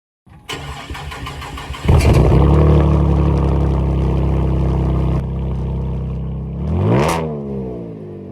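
Cadillac CTS engine cold-started: the starter cranks for about a second and a half, the engine catches with a loud flare and settles into a steady idle that steps down a few seconds later. Near the end, one quick rev rises and falls.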